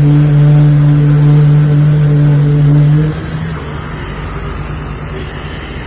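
Engine-driven construction machinery running with a loud, steady hum that drops away abruptly about three seconds in, leaving a quieter rumble.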